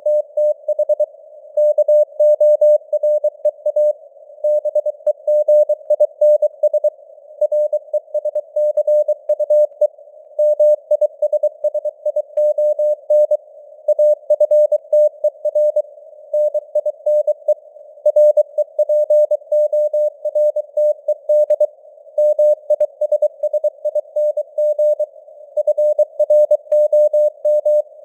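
Morse code (CW) sent at 23 words per minute as a single mid-pitched tone keyed on and off in dots and dashes, over a narrow band of simulated radio-receiver hiss that carries on between the characters.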